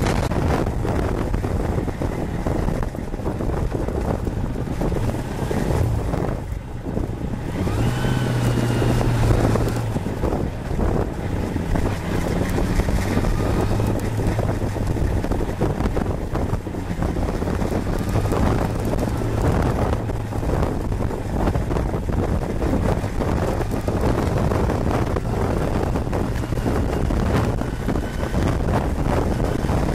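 Kawasaki Balius 250cc inline-four motorcycle engine running while riding, under heavy wind noise on the microphone. The engine note climbs briefly about eight seconds in.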